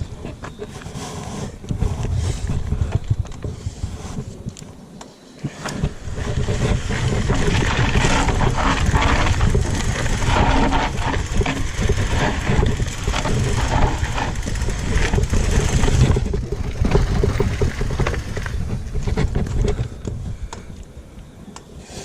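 Bicycle being ridden fast downhill on a rough dirt trail: rumbling tyre noise, rattling and clattering of the bike, and wind buffeting the microphone. It eases off briefly early on, picks up about six seconds in, and fades near the end.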